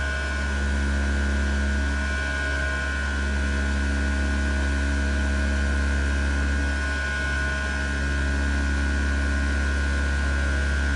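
400 W electric oscillating knife tool of a CNC flatbed cutter running steadily as it cuts a 50 mm closed-cell EVA foam sheet: a deep, even hum with a steady high whine over it.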